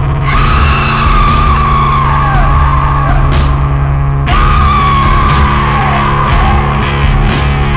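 Loud heavy rock music: a dense low rumble under a held high note that wavers and slides down in pitch now and then, with sharp crashing hits every second or two.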